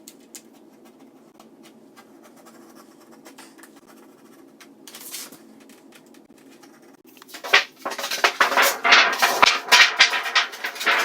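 Wooden boards being handled and fitted against each other: a quiet start with a faint hum and light clicks, then from about seven seconds in, loud irregular scraping and knocking of wood on wood.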